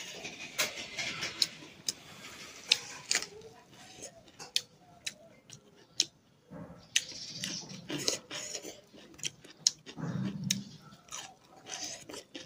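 A person eating rice by hand: close-up chewing with many short sharp clicks and smacks. Fingers work the food on a steel plate.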